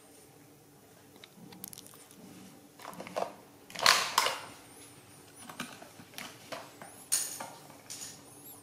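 Irregular clattering and knocking of plastic toys being handled. The loudest knock comes about four seconds in, as a plastic toy excavator truck is set down on the floor mat.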